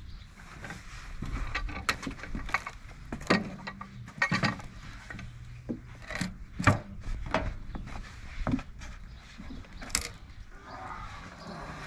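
Irregular wooden knocks and clatter with mechanical clunks, a dozen or so sharp strikes spread unevenly, the loudest about two-thirds of the way in.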